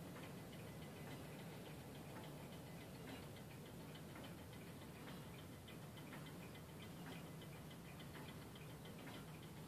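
Antique French Vincenti 8-day cartel wall clock's movement ticking faintly and steadily.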